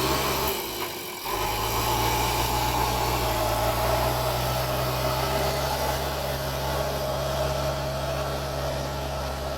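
JCB 3DX backhoe loader's diesel engine running steadily, with a brief dip about a second in before the sound picks up again.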